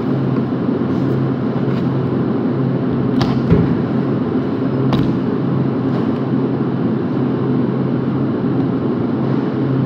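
Steady machinery hum filling a fish-processing room, with a few sharp knocks from the knife and fish on the cutting table, the loudest about three and a half seconds in.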